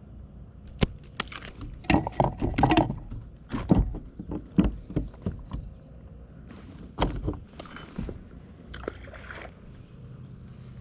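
Water splashing and sharp knocks at the side of a kayak as a hooked fish thrashes at the surface and is landed: a quick string of splashes, thickest in the first half, then a few more near the end.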